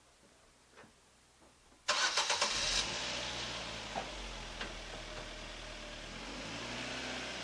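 A first-generation Ford Focus's engine being started: a few faint clicks, then about two seconds in the starter cranks briefly, the engine catches and settles into a steady idle.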